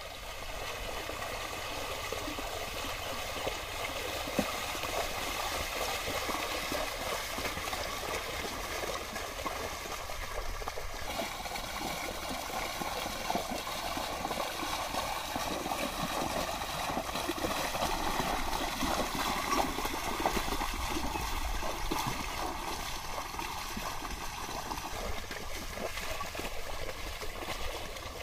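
Steady sloshing and splashing of water and mud as a pair of bullocks wade through a flooded paddy field, dragging a levelling board behind them.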